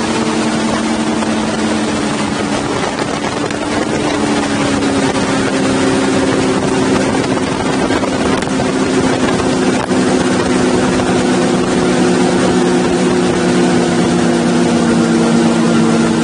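Large outboard motor running at high speed, heard close up, with rushing spray and wind noise on the microphone. The engine note drops slightly a few seconds in and then holds steady as the boat slows from about 84 to 50 mph.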